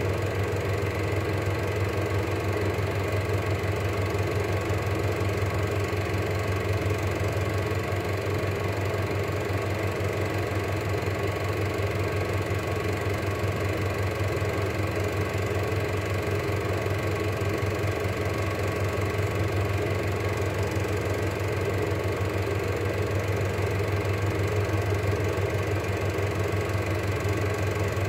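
Cine film projector running: a steady, fast mechanical clatter over a low motor hum.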